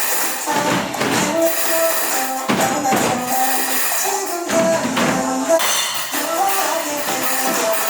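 Music playing: a melody of held notes over jingling percussion struck again and again.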